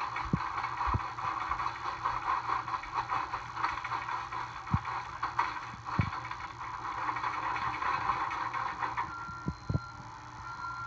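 John Deere skid steer's diesel engine running, with a dense, grainy rattling clatter over it and a few sharp knocks. The rattle eases about nine seconds in.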